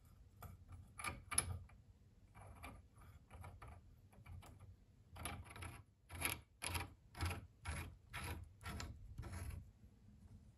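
Metal collar being screwed by hand onto the threaded steel tube end of an antique nail puller: a run of short, faint metal-on-metal scrapes as the threads turn, about two a second.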